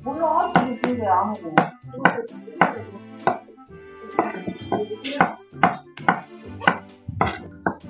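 Chef's knife slicing king oyster mushroom stems on a wooden cutting board, the blade knocking on the board about twice a second.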